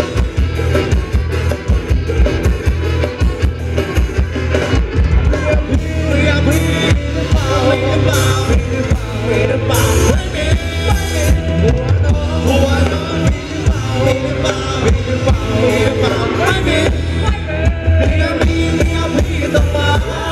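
Live Thai ramwong (Phetchaburi circle-dance) music from a band, with singing over a strong bass line.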